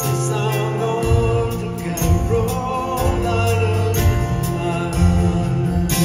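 Live band music: acoustic guitar, bass and keyboards under sustained sung vocal harmonies, recorded from the audience.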